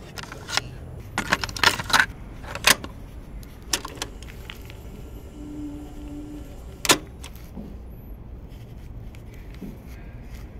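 A run of sharp clicks and knocks in the first three seconds, another about four seconds in and a loud one near seven seconds. After that, faint scratching of a pencil writing on lined notebook paper.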